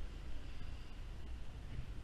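Ride noise from a Yamaha Zuma 50cc scooter under way: an uneven low rumble of wind on the microphone over the faint steady running of the small scooter engine.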